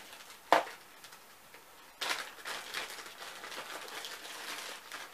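A sharp tap about half a second in, then a few seconds of crinkling and rustling plastic as a laptop charger is unwrapped from its clear plastic bag.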